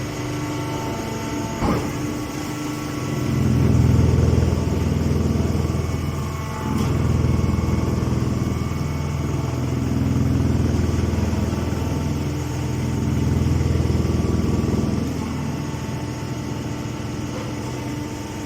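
A silage baler press machine running: a steady motor hum with a deeper surge about every three seconds. There is one sharp click near the start.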